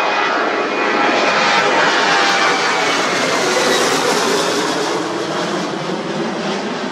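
Boeing 737-800's twin CFM56-7B turbofan engines as the jet passes low overhead: a loud jet roar with a whine that falls slightly in pitch, loudest at the start and slowly fading as it moves away.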